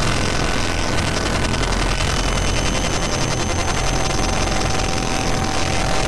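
Harsh power-electronics noise from a SunVox synthesizer patch built around feedback modules: a loud, dense wall of distorted noise over a rumbling low end. Thin steady whistling tones ride on top, one stepping up higher about two seconds in and a lower one joining around the middle.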